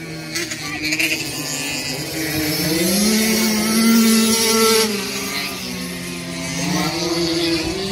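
Race car engines running hard on a short oval, their pitch climbing as they accelerate, dropping as they lift off about five seconds in, and climbing again near the end.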